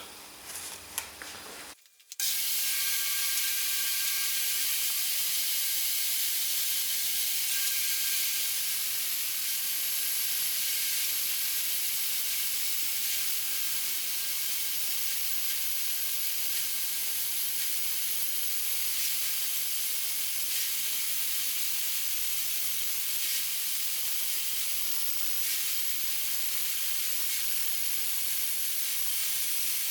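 Woodworking power saw running steadily while ripping an 8 mm strip from maple, an even hiss with faint steady tones that starts suddenly about two seconds in.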